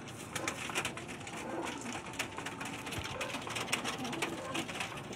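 Domestic pigeons cooing in their cages, over many sharp clicks and taps.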